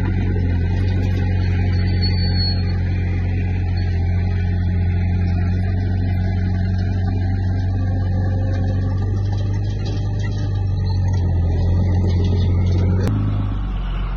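Diesel engine of a Komatsu D20P crawler bulldozer running steadily with a deep, even hum. The sound changes abruptly about a second before the end.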